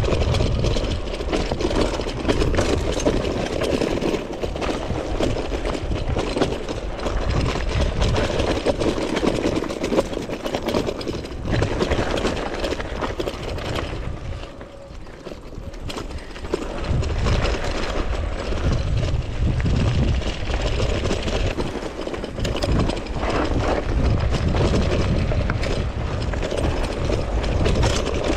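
Wind buffeting the bike-mounted camera's microphone and mountain-bike tyres rumbling over a dirt and gravel trail at speed, with scattered knocks and rattles from the bike. It quietens briefly about halfway through, then picks up again.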